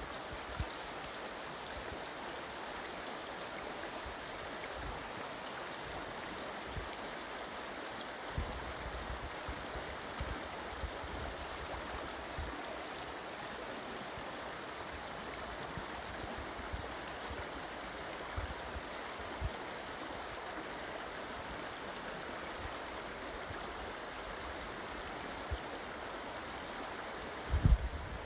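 Steady rushing of a shallow river running over a gravel bed. There are scattered soft low thumps, and a louder cluster of bumps near the end.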